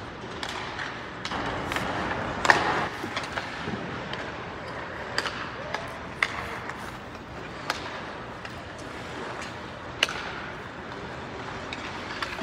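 Ice hockey practice: pucks cracking off sticks and boards, about half a dozen sharp impacts ringing out in a near-empty arena, the loudest about two and a half seconds in. Skate blades scrape the ice under a steady arena hum.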